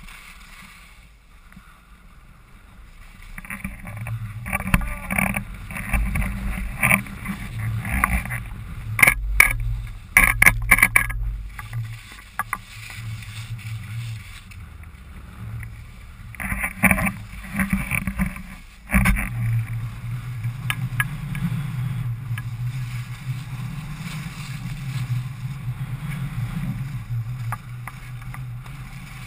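Skis sliding and scraping over packed snow on a downhill run, with a steady rush of wind on an action camera's microphone. A cluster of sharp clicks and clatters comes about nine to eleven seconds in.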